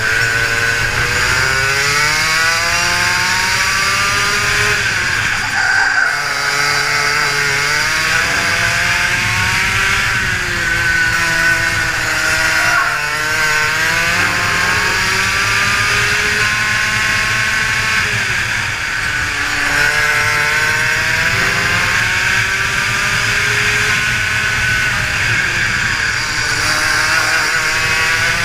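Rotax Max 125 single-cylinder two-stroke kart engine at racing speed, its pitch climbing steadily on each straight and dropping sharply as the kart brakes for a corner, several times over. Heard from on board the kart.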